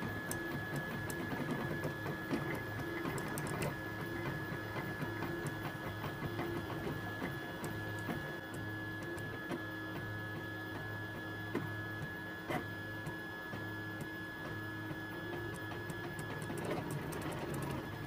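HICTOP Prusa i3 3D printer at work, its stepper motors whirring in low tones that shift in steps as the print head changes direction, over a steady high whine, with scattered light clicks.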